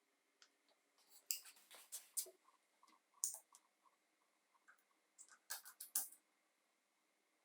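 Faint sharp clicks and light scraping of something being handled, coming in three short clusters with quiet gaps between.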